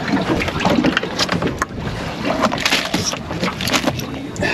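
Water splashing and slapping against the hull of a small aluminium boat drifting on a choppy sea, with wind on the microphone and a few sharp knocks.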